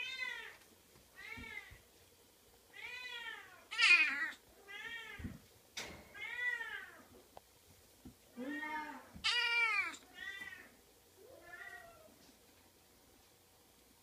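Oriental kitten meowing over and over: about ten short, arched meows with pauses between them, the vocal chatter of a talkative kitten. A few faint knocks fall between the meows.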